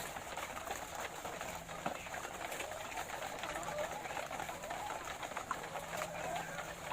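A flock of laying hens clucking and murmuring, many calls overlapping into a continuous wavering chorus, with scattered small clicks throughout.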